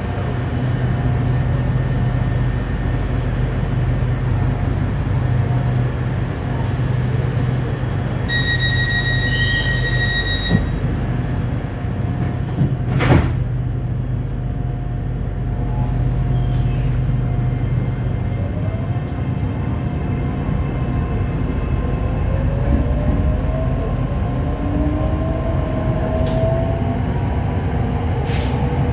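Inside a car of an SRT Dark Red Line electric commuter train (Hitachi AT100): a steady hum while it stands at the station, a steady beep of about two seconds a third of the way in, and a sharp knock near the middle as the sliding doors close. From about two-thirds of the way in, the traction motors give rising whines as the train pulls away.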